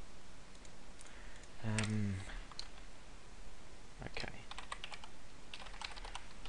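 Typing on a computer keyboard: scattered single clicks, then a quick run of keystrokes near the end.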